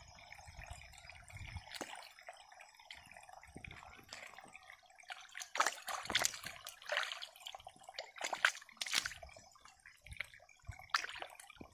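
Hands digging and groping in shallow muddy water: wet sloshing and dripping, quiet at first, then a run of irregular splashes and squelches in the second half.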